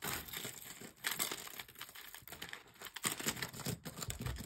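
Hands rummaging through a tray of vintage costume jewelry: a dense, irregular clinking and rattling of metal brooches, clasps and rhinestone chains shifting against each other.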